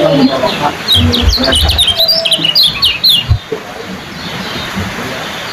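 Caged yellow white-eyes (kecial kuning) giving rapid, high, sharp chirping calls, a fast run of notes about one to three seconds in that thins out after that, with a few low thumps among the calls.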